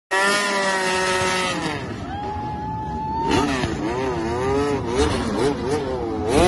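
MotoGP racing motorcycle engine revving hard during a burnout, the rear tyre spinning in place. The revs are held high, fall away about two seconds in, rise and fall in quick blips, then climb high again near the end.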